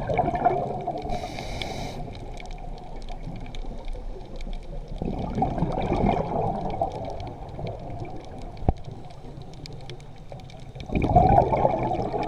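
Underwater water noise: three bubbling, gurgling surges about five seconds apart, with a faint crackling between them.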